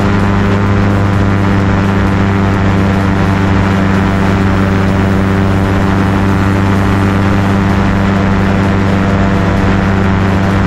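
Engine and propeller of an open light aircraft running steadily at constant speed in flight, an even hum with no change in pitch or level.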